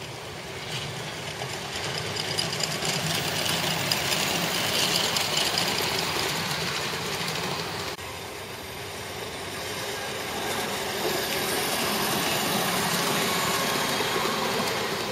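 Ridable miniature park train running along its track: a steady rumble and clatter of wheels on the rails, swelling as it nears. It breaks off abruptly about eight seconds in and builds again as the passenger cars pass.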